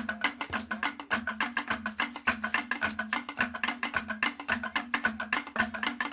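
Instrumental passage of early calypso music, led by percussion: fast, even knocks like a wood block, with shaker rattles, over a steady low note.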